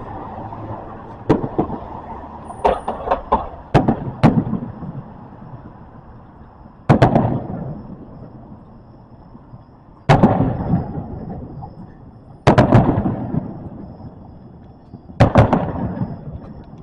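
Aerial fireworks shells bursting: a few sharp pops and bangs in the first four seconds, then four big booms about every three seconds, each followed by a long echoing rumble.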